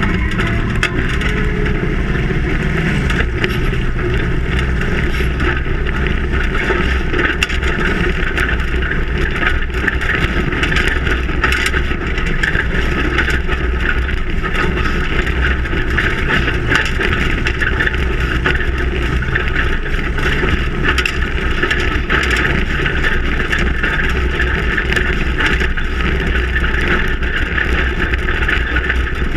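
Ford Raptor prerunner truck driving fast over a desert dirt track: the engine and exhaust run under load together with a steady rush of wind, tyre and chassis noise. The engine pitch climbs over the first few seconds as the truck accelerates, then the sound stays steady.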